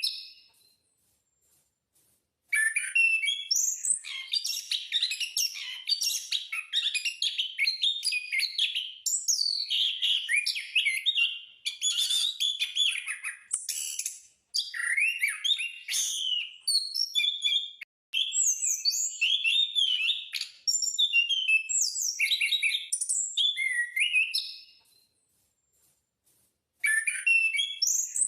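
A thrush of the kind sold as anis or punglor singing in full voice: long runs of fast, varied whistled and chirping phrases with short pauses, stopping for a couple of seconds at the start and again near the end.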